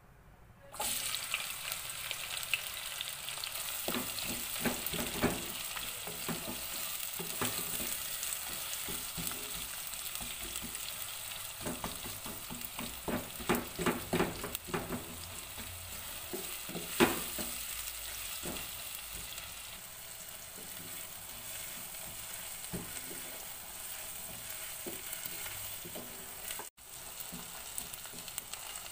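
Sliced red onions sizzling in hot cooking oil in a pan, the frying hiss starting suddenly about a second in as they go in. A wooden spatula knocks and scrapes against the pan as they are stirred, most often in the middle stretch.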